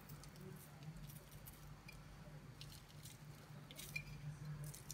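Faint scattered rustles and light pattering of coarse breadcrumbs sprinkled by hand onto zucchini halves on parchment paper, over a low steady hum.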